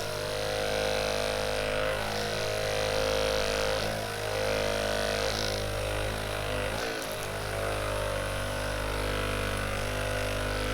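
Hypervolt percussion massage gun running on speed level 3, a steady motor hum whose pitch shifts briefly every second or two as it works against the muscle.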